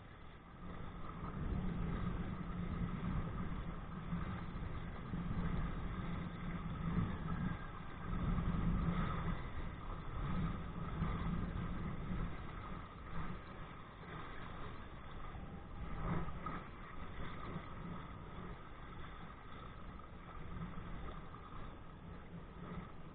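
Wind and water rushing on a body-worn camera's microphone while kayaking pulled by a kite: a steady low rumble that swells and eases, loudest about eight to ten seconds in.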